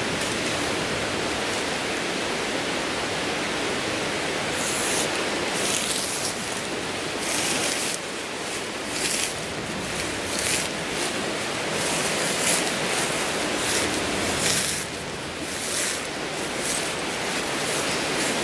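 Tent rainfly fabric rustling and crinkling in repeated short bursts as it is lifted and the arch pole is fed through it, starting about four and a half seconds in, over a steady rushing background noise.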